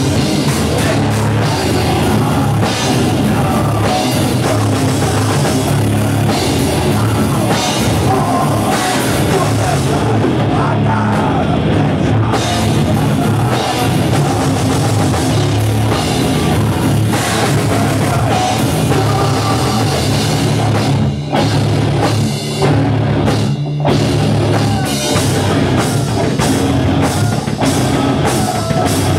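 A live heavy metal band playing loud, with a drum kit driving it; the band hits a few short stop-start breaks about three-quarters of the way through.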